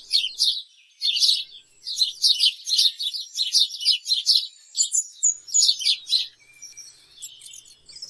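House sparrow chirping: a quick run of repeated short chirps, about three a second, turning fainter near the end.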